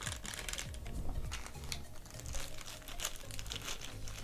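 Plastic crinkling and small clicks of hands handling a camera battery and its packaging, over quiet background music.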